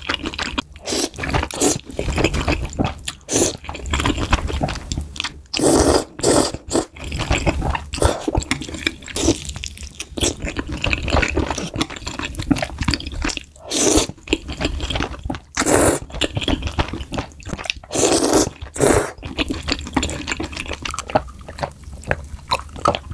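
Close-miked eating: irregular wet slurps and chewing of noodles, several of the slurps loud.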